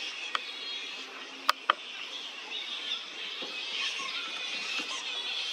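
A steady chorus of wild birds chirping and chattering, with three sharp clicks in the first two seconds.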